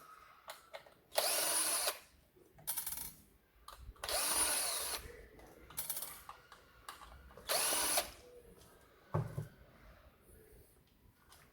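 Cordless drill run in three short bursts, each about half a second to a second long, with small clicks and handling noises between them.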